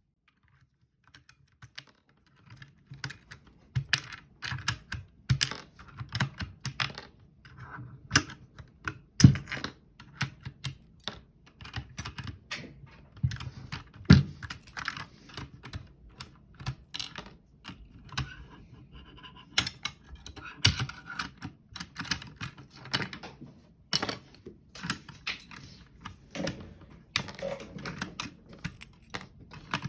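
Typing on a mechanical keyboard fitted with new keycaps: an irregular run of key clicks starting about a second in, with a few much louder strikes here and there.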